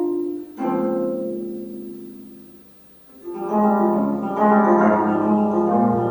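25-string gayageum played solo. A low plucked chord at the start and another just after half a second ring out and fade almost to silence by about three seconds in. Then a fast, dense run of notes begins.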